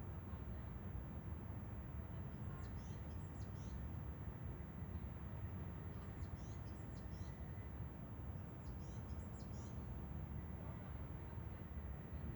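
A small songbird chirping in short clusters of high notes every few seconds, over a steady low outdoor rumble.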